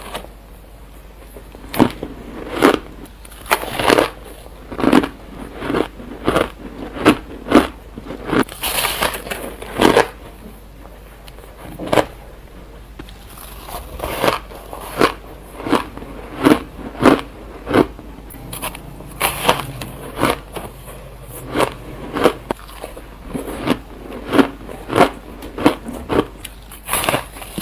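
A person biting and chewing ice cubes. Loud, sharp crunches come roughly one or two a second, in runs with short lulls between.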